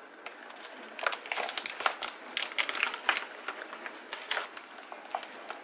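Plastic bag of vegetables crinkling and crackling irregularly as hands pull and pick at it, struggling to tear it open.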